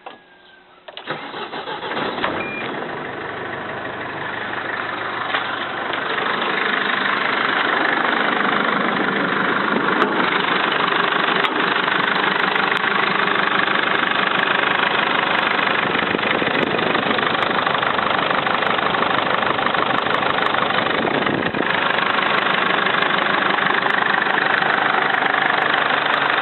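Mercedes-Benz Sprinter engine starting about a second in, then idling steadily with an unusual knock, which the owner likens to the hydraulic lifters (lash adjusters) and hears only from the turbocharger side.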